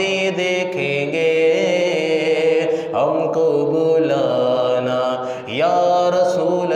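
A man singing a naat in Urdu, drawing out long, ornamented held notes. About five and a half seconds in he pauses briefly and swoops upward into a new phrase.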